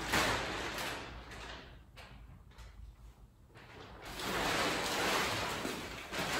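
Heavy plastic garbage-bag sheeting on a homemade tent rustling and crinkling as it is lifted and shifted. It goes quieter for a couple of seconds in the middle, then picks up again.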